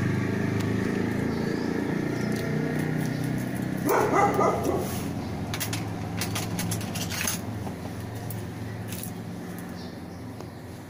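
Boxer puppy crying steadily while its tail is being docked, with a louder yelp about four seconds in; the crying slowly fades. Light clicks sound a second or so after the yelp.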